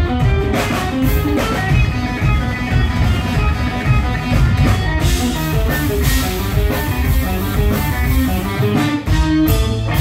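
Live rock band playing loud, with electric guitars over a drum beat. Near the end the beat drops out and a chord is held.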